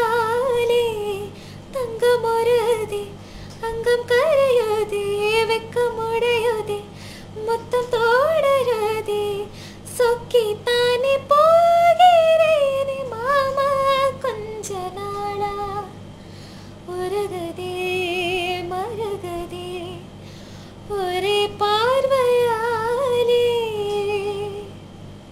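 A young woman's high, childlike voice singing a slow melody unaccompanied, in phrases of a few seconds with short breaths between them, the held notes gliding and wavering.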